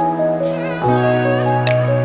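Background music: sustained soft chords that change once, a little under a second in, with a light tick near the start and again near the end.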